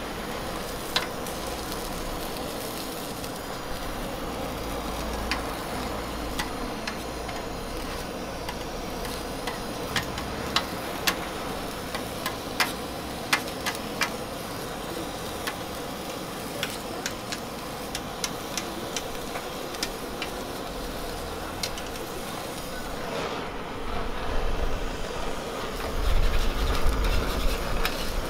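Handheld blowtorch flame hissing steadily over a hot flat-top griddle with food sizzling, broken by sharp clicks of a metal spatula against the griddle, most often around the middle. It grows louder with a low rumble added near the end.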